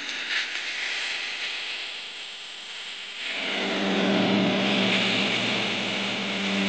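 A small portable Bluetooth speaker playing back audio: a loud hiss-like sound that grows louder about three seconds in, where a steady low hum-like tone joins it.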